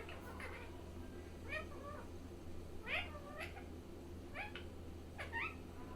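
Pet parrot mimicking a cat: a string of short meows, about six, each bending up and down in pitch.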